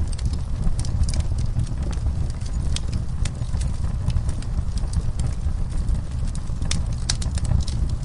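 Wood fire burning in a fireplace: a steady low roar with irregular sharp crackles and pops, a quick cluster of louder pops near the end.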